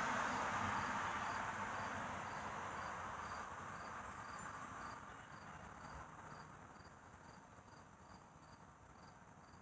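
Crickets chirping steadily, about two to three chirps a second, while a distant passing vehicle's rumble fades away over the first several seconds.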